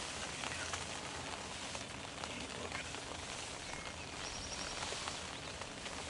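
Steady outdoor background hiss with scattered faint ticks, and a short run of high pips about four seconds in.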